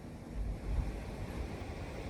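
Strong, gusty wind buffeting the microphone, with a low rumble that surges about a third of a second in over a steady rushing noise.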